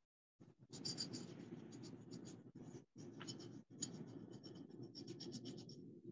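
A paintbrush working paint over a ceramic teapot's saucer, making a soft, continuous scratchy rubbing that breaks off briefly twice.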